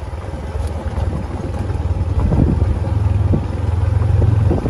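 Motorcycle engine running as the bike rides along a rough dirt track, a steady low drone that gets louder about two seconds in.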